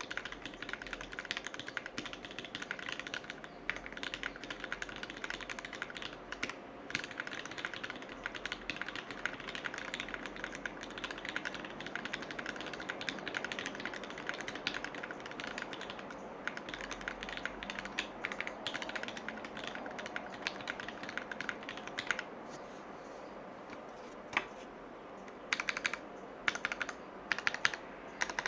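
Typing on the Erisu custom mechanical keyboard, whose alpha keys use Gateron Milky/JWK FFF hybrid switches lubed with Krytox 205g0: fast, continuous keystrokes. About three quarters of the way through the typing stops, leaving a lone key press and then a few short bursts of keystrokes.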